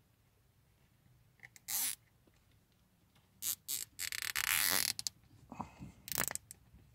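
Nylon cable tie being pulled through its ratchet and tightened, a zipper-like rasp lasting about a second midway, among a few short rustles and clicks of handling.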